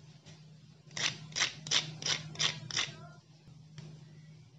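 Crispy fried chana dal pakora being broken apart by hand, crackling in six quick crunches about a third of a second apart.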